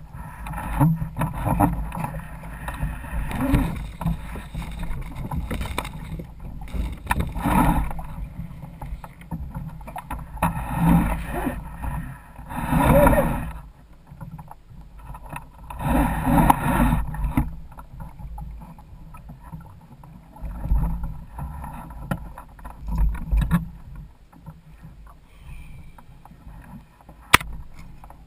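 Water sloshing and slapping against the hull and outrigger floats of a Hobie Adventure Island sailing kayak at sea. The sound rises in surges every few seconds over a steady low rumble.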